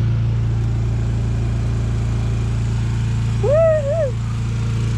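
A steady low mechanical drone, like a running motor, with a short wavering whine about three and a half seconds in that rises, wobbles and falls away.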